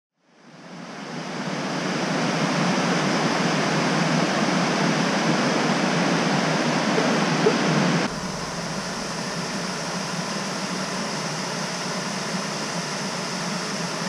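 Steady rushing of falling water from river cascades. It fades in over the first couple of seconds and turns a little quieter and softer about eight seconds in.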